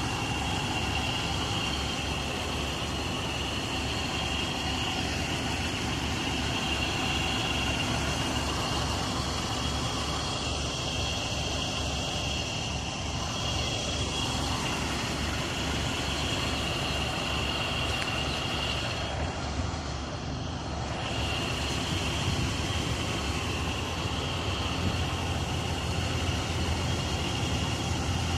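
An engine running steadily with a low, fast pulse, and a steady high-pitched tone above it; the sound dips briefly about twenty seconds in.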